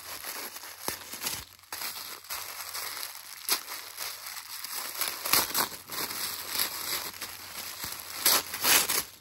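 Packaging crinkling and rustling with sharp crackles as a wrapped advent-calendar gift is opened by hand.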